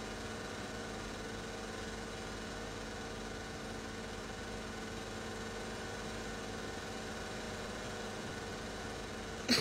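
Steady background hum with a few held tones, and one short sharp click just before the end.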